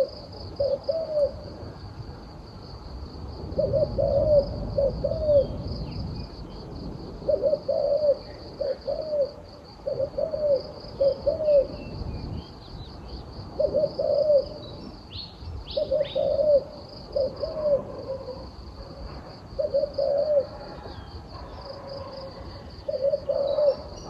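Spotted dove cooing in short phrases of two or three notes, repeated every few seconds. Under it runs a steady, pulsing high-pitched insect trill.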